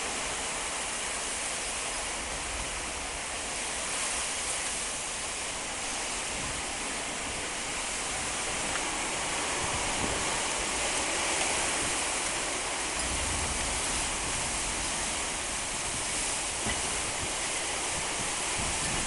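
Heavy wind-driven rain pouring down in a storm, a steady rushing hiss, with gusts of wind rumbling low on the microphone, most strongly about two-thirds of the way through.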